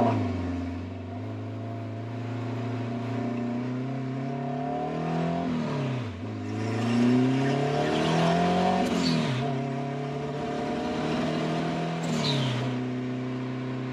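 Honda K-series engine in a Smart car pulling hard, heard from inside the cabin. The revs climb and drop back at gear shifts about 6 and 9 seconds in, with a brief hiss at the later shifts, then fall once more near the end and hold steady.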